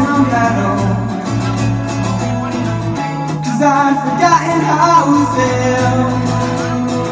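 Acoustic guitar played live, with a man singing over it.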